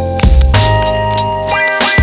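Background music with deep bass, held notes and a steady beat.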